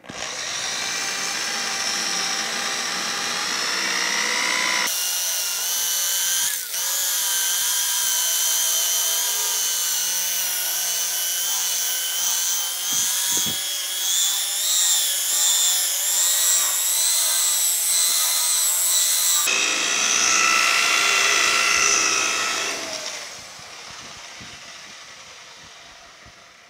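Handheld electric polisher with a damp blue foam pad buffing a painted steel truck door in the second, finishing polish step: a steady motor whine with several tones. Its pitch and tone change abruptly about five seconds in and again near twenty seconds, and it dies away about twenty-three seconds in.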